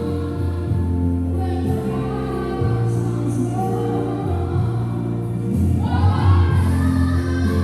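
Music with choir-like singing over held low bass notes that change every second or two.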